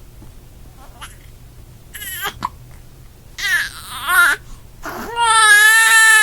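Baby crying, starting with short cries and building to a long, loud, steady wail about five seconds in.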